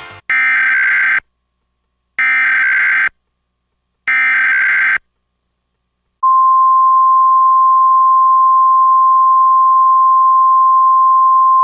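Emergency Alert System SAME header: three identical bursts of warbling data tones, each about a second long with a second's gap between them. About six seconds in, the steady single-pitch 1050 Hz NOAA Weather Radio warning alarm tone begins. These are the valid codes and alert tone that set off a NOAA Weather Radio receiver for a national EAS test.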